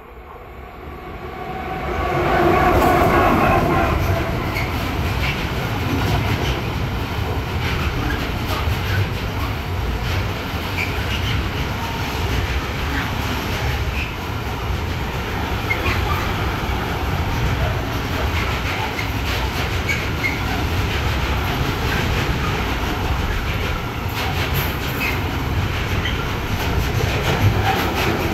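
Electric freight train passing close by: it comes up fast about two seconds in, then a long string of container wagons rolls past with a steady rumble and a rhythmic clatter of wheels over the rail joints, dropping away right at the end.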